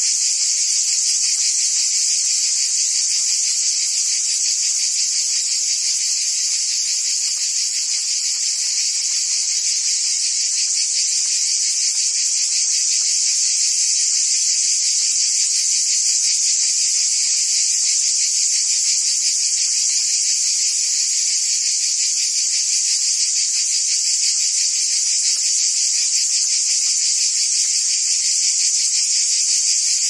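Cicadas buzzing in a steady, high-pitched chorus.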